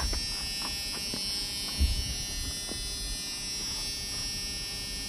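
Flood-drowned pickup truck engine running with a steady drone and a light, irregular knock, which the owner suspects is a rod or a valve. A single louder thump about two seconds in.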